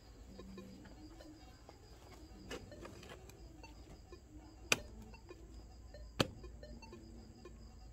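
Pickaxe blows into dug earth: a lighter strike, then two sharp hard strikes about a second and a half apart.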